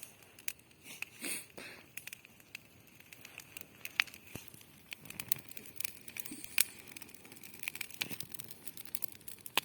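Wood bonfire crackling: scattered sharp snaps and pops at irregular intervals, two of them louder about four and six and a half seconds in.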